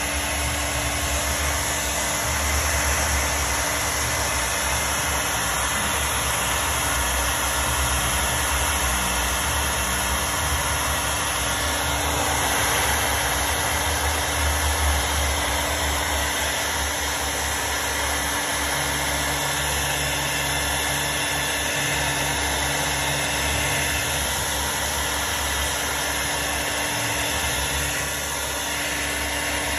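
Handheld blow dryer running steadily: a constant rush of air with a low hum under it.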